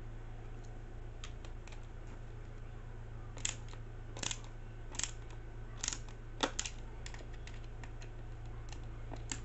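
Screwdriver driving a self-tapping screw into a plastic Tamiya RC gearbox housing: faint ticks, then a string of sharp clicks and creaks from about three to seven seconds in as the screw binds. The screw turns out to be a little too long for the hole.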